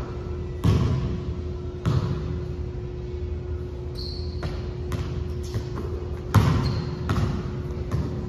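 A basketball bouncing in a large echoing gym: three loud bounces, about half a second in, near two seconds and around six and a half seconds, with lighter knocks between. There are two brief high squeaks, and a steady hum runs underneath.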